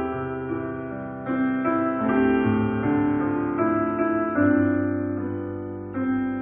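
Slow, gentle solo piano music: sustained chords, with a new chord struck about once a second.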